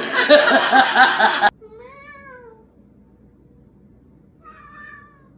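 Loud laughter that cuts off suddenly about a second and a half in, then a domestic cat meowing twice, two drawn-out meows a couple of seconds apart.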